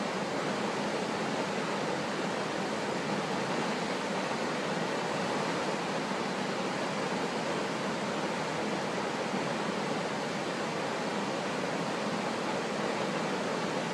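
Whitewater river rushing through rapids and falls: a steady, even wash of water noise that doesn't change.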